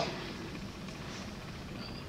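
Quiet room tone: a faint, steady background hiss with no distinct events.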